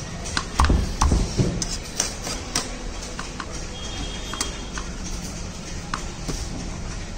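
A butcher's knife and hands working a skinned chicken on a cutting board: scattered sharp clicks and taps, with a few heavier thumps about a second in.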